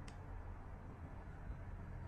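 Quiet room tone: a low steady hum, with one faint tick right at the start.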